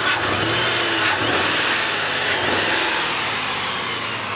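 1999 Mercury Grand Marquis 4.6-litre V8 running with a misfire, an uneven miss in its beat.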